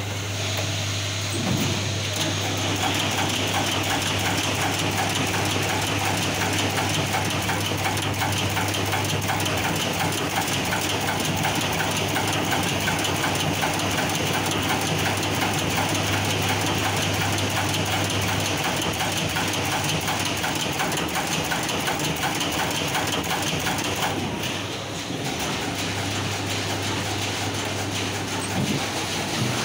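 Surface-mount pick-and-place machine running: a rapid, steady mechanical clicking from the placement head, over a low hum that drops out for a few seconds about two-thirds of the way through.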